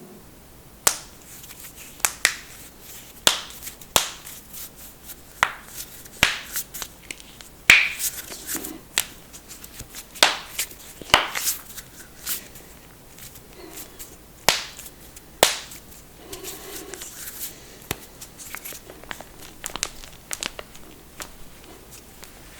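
A person cracking their own joints: a run of sharp pops and cracks at irregular intervals, some in quick pairs, with softer rustling in between.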